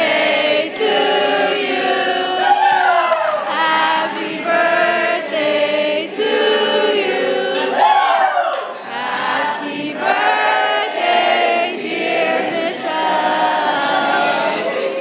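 A youth choir of young men and women singing together, holding long notes with several voices at once.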